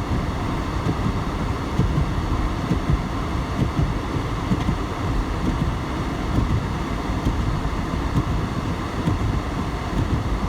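Storm wind blowing steadily, buffeting the microphone with an irregular low rumble.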